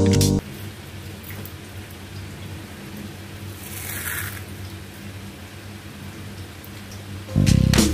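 Crispy deep-fried onion slices crackling and rustling as a hand scoops them up, crushes them in a fist and lets them fall back onto a paper-towel-lined plate. The crackle is loudest about four seconds in, when the fistful is squeezed.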